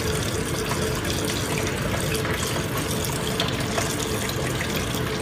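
Steady rush of water feeding a blue bowl concentrator, swirling round the bowl and draining out through the center riser, with a faint steady hum underneath.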